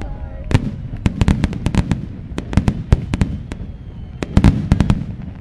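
Fireworks display: a rapid, irregular string of sharp bangs and crackles, several a second, over a steady low rumble.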